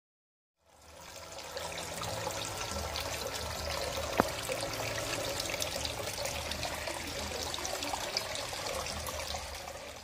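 Water trickling and splashing steadily in a fish tank, with many small drips and crackles and one sharp click about four seconds in.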